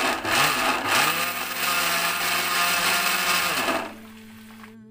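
Electric mixer-grinder grinding soaked rice into coarse flour. The motor starts in a couple of short surges, then runs steadily for about three seconds and spins down near the end.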